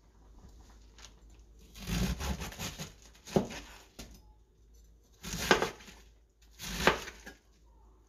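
Fresh cabbage leaves torn by hand from a head: four crisp tearing crunches a second or so apart, the last two the loudest.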